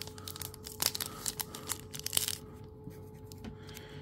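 Wrapper of a 2023 Panini Mosaic football card pack being torn open and crinkled by hand: quick crackling, with a louder tear about two seconds in.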